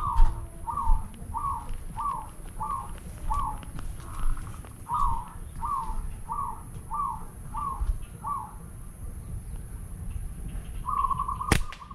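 Zebra dove calling: a series of about a dozen short cooing notes, a little over two a second. Near the end a rubber slingshot is fired with one sharp snap, and the shot hits the bird.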